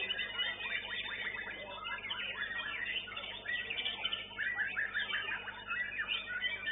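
Many caged white-rumped shamas (murai batu) singing at once in competition: a dense, continuous tangle of overlapping fast chirps, trills and whistles.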